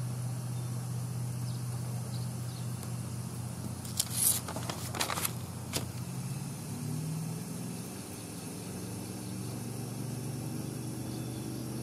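Steady low hum of an idling motor-vehicle engine. A brief burst of paper rustling and crinkling comes about four to six seconds in.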